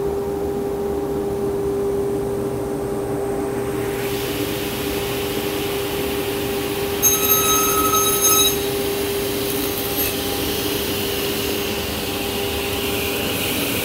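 Martin T60C sliding table saw running at speed with a steady hum. About seven seconds in, the blade cuts through a clamped soft pine workpiece for about a second and a half, a louder, higher-pitched cutting sound over the motor.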